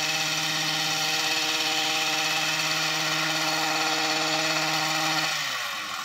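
Gas-powered string trimmer running at full throttle with a steady high engine note; a little over five seconds in the throttle is let off and the engine note falls away toward idle.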